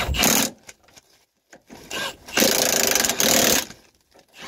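Milwaukee cordless impact wrench hammering as it runs down the nuts holding a new lower ball joint to the control arm. A burst stops about half a second in, and a second run of just over a second starts about two and a half seconds in.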